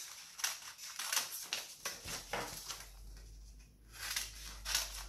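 Scissors cutting into folded paper, a string of irregular snips mixed with the crinkle and rustle of the sheet being turned and handled.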